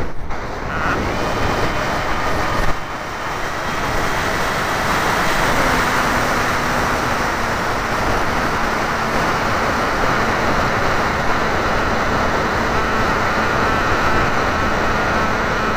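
Wind rushing over a camera mounted on a Wild Hawk RC model airplane in flight, with the thin steady whine of the plane's motor that shifts in pitch a few times. There is a brief knock and dip about three seconds in.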